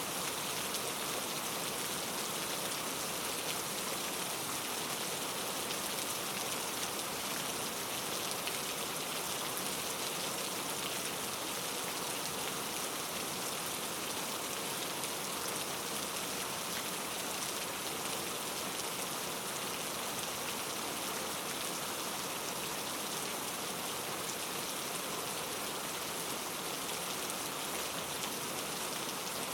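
Steady rain falling on a surface, a continuous even patter of drops with no thunder or other events.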